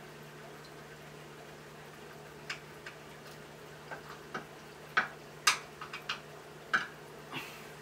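A series of short, sharp clicks and taps, irregular and starting a couple of seconds in, the loudest a little past the middle, over a faint steady hum.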